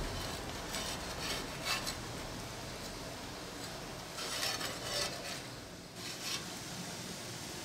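A metal spatula scraping and clinking against a clay griddle as floured horse mackerel are turned over. There are several short scrapes, with a busier cluster about four to five seconds in.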